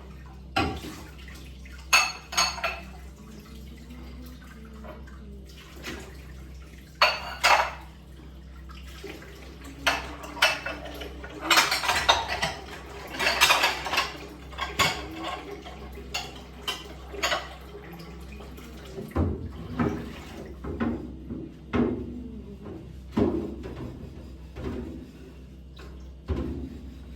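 Dishes and cutlery being handled during washing-up: irregular clinks and clatters of crockery and metal, busiest around the middle.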